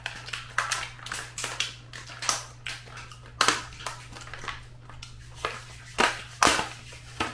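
Thin clear plastic takeaway container crackling and snapping as its lid is worked open: a run of irregular sharp crackles, with the loudest snaps in the second half.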